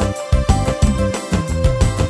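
Instrumental igal dance music played on an electronic keyboard: a melody over a repeating bass line and a steady beat, with no singing.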